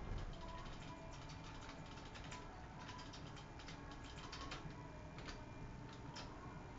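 Faint, irregular light clicks and ticks over a quiet steady hum, heard inside a small elevator cab.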